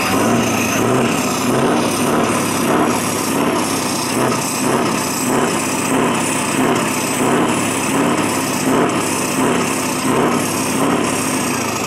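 Scania R500's V8 diesel engine running at idle, a steady loud rumble with an even pulsing swell about one and a half times a second.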